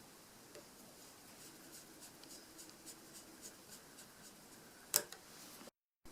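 Small screwdriver turning a tiny screw into a Nexus 7 tablet's internal frame: faint scratchy ticking, with one sharper click about five seconds in. The sound cuts out abruptly for a moment near the end.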